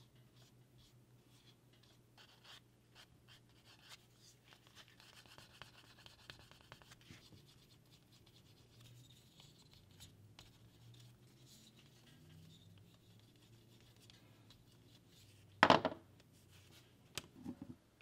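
Faint scratchy rubbing of a grooved wooden edge slicker burnishing the edge of a leather strip, in light irregular strokes. Near the end comes one short, much louder knock.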